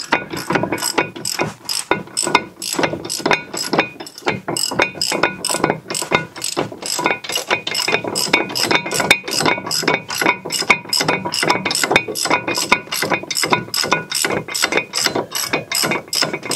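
Hand socket ratchet clicking in a steady, quick rhythm of about three clicks a second as it is swung back and forth, backing out a loosened 18 mm brake caliper bracket bolt.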